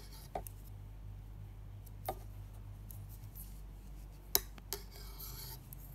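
Knitting needles clicking against each other now and then as stitches are worked, about five sharp clicks with the loudest about four seconds in, followed by a brief rustle of yarn.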